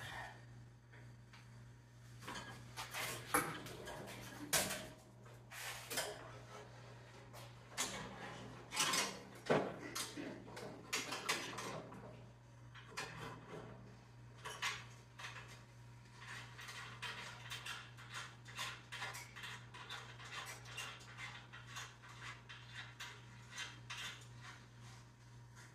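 Metal clinking, clattering and scraping from hands working the handle and controls of a 1968 Toro Snow Hound 20 snowblower, its engine not running, over a steady low hum. Heavier clatter in the first half gives way to lighter, quicker clicking later.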